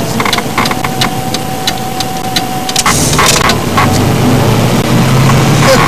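Car engine and road noise heard from inside a car driving slowly along a street, with many sharp clicks and knocks. A thin steady whine stops about halfway through, and the low engine hum grows stronger after that.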